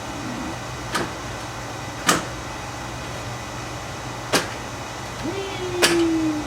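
Four sharp clicks, irregularly spaced a second or two apart, from handling the packaging of a boxed RC crawler; near the end a short low tone slides slowly down in pitch.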